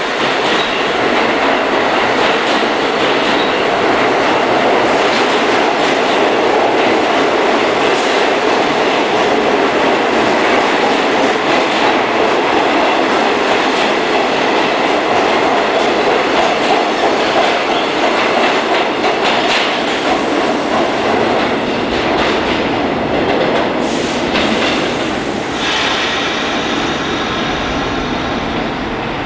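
New York City subway train of stainless-steel cars running past the platform: a steady rumble of wheels with clacking over the rail joints. It eases off slightly in the last few seconds as the train goes into the tunnel.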